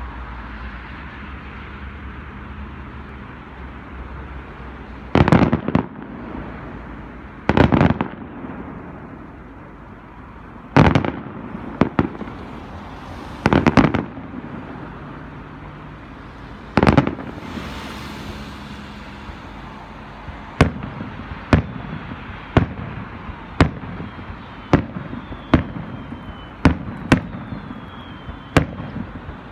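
Aerial firework shells bursting: a handful of heavy booms a few seconds apart, then, about two-thirds of the way in, a quicker run of sharper bangs about one a second.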